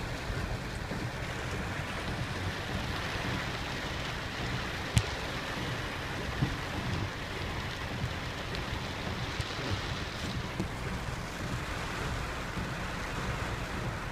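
Steady rushing noise of typhoon wind and rain over a swollen river, with wind rumbling on the microphone; a sharp click about five seconds in.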